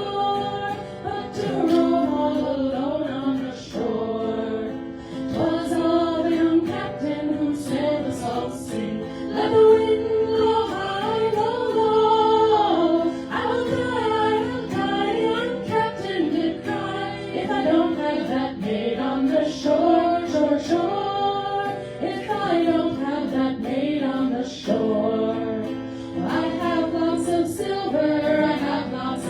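Vocal group singing a folk ballad in harmony, several voices moving together over held notes.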